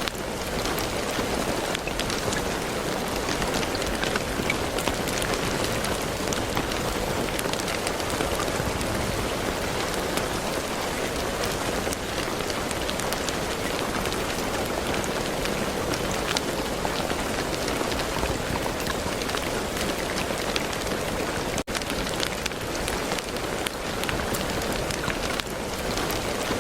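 Steady rain falling on a hard surface, a dense even hiss with many individual drops ticking through it. About 22 seconds in, the sound drops out for an instant and resumes.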